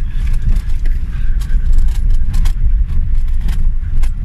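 Wind buffeting the microphone while riding a bicycle: a heavy, uneven low rumble with scattered clicks and rattles.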